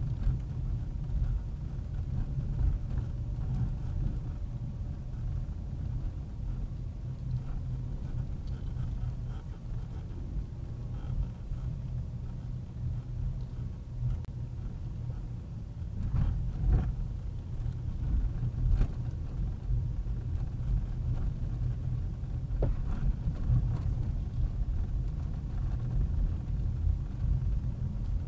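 A car driving: a steady low rumble of engine and road noise, with a few brief knocks about two-thirds of the way through.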